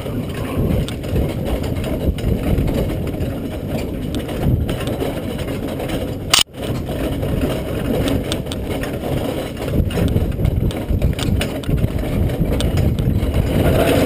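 Horse-drawn carriage moving along a dirt trail: a steady low rumble of wheels and hooves, with one sharp click about six seconds in.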